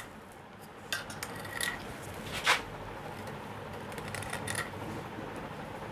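Cloth rubbing and wiping inside the seal seat of a shallow-well jet pump's casing, cleaning out dirt before a new mechanical seal is fitted. A few short scrapes and clicks cut through the rubbing, the sharpest about two and a half seconds in.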